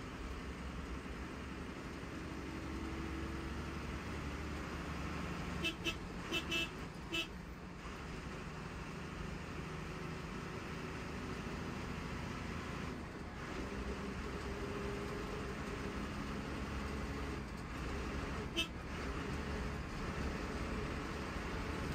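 Steady engine and road rumble of a KSRTC bus running in traffic, broken by short vehicle-horn toots: a quick run of four or five about six seconds in, and a single toot near the end.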